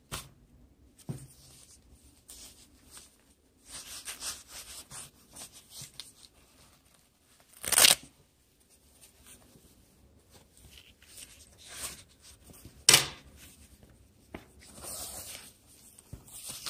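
Handling noise from a folded neoprene belly-band holster being unfolded and pulled open by hand: soft rustling and scuffing, with two short, loud rips about eight and thirteen seconds in.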